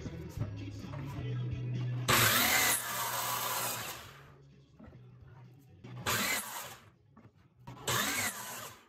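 Miter saw spinning up and its blade crosscutting a hardwood board. There are three bursts: a long one about two seconds in, and two shorter ones near six and eight seconds. Background music plays underneath.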